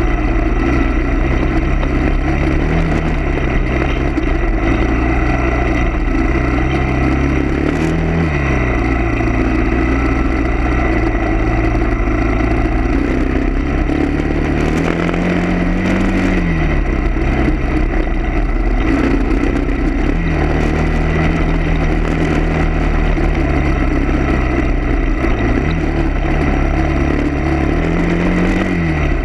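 A vehicle engine running continuously, its pitch climbing and dropping back several times as it speeds up and slows.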